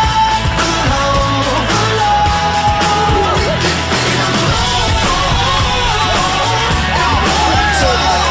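Loud music with a steady drum beat, bass and vocals.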